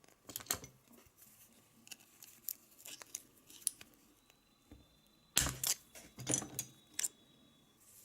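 Scattered clicks and metallic clinks of hand tools working on a small two-stroke nitro model engine as its flywheel is taken off, with a louder clatter about five seconds in and a few more clicks after it.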